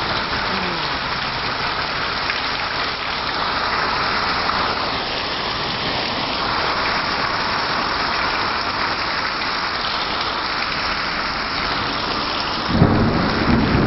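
Heavy rain falling, a steady loud hiss. Near the end an off-road truck's engine comes in underneath, low and running.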